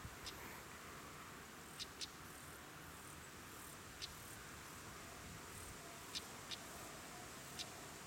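European stonechat giving its hard, clicking 'tak' alarm calls: about six short, sharp clicks a second or two apart, twice in quick pairs, over a faint steady hiss.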